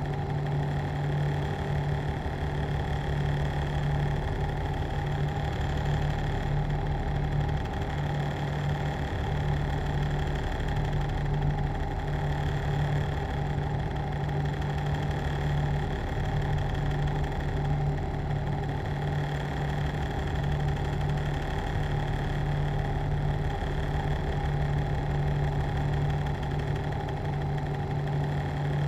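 A machine running steadily: an even mechanical hum with a strong low drone and fainter steady higher tones above it.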